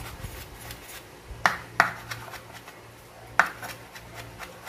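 Cleaver chopping moringa leaves on a wooden cutting board: a run of light knocks with three sharper, louder chops, two of them close together about a second and a half in and one more about three and a half seconds in.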